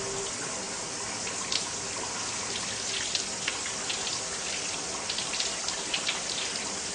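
Water running steadily, with scattered small drips and splashes.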